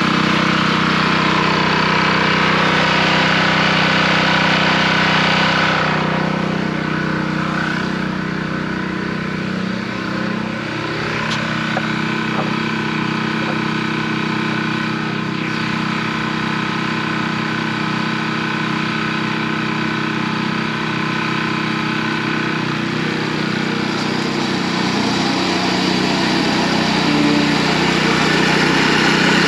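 Gas engine of a California Trimmer self-propelled reel mower running steadily while the mower is driven across the lawn; its sound changes and dips slightly about six seconds in and again around ten seconds.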